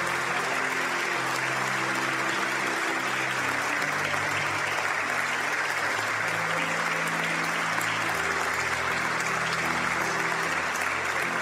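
Sustained applause from the members of a parliamentary chamber, steady throughout, with slow, sad background music of long held notes underneath.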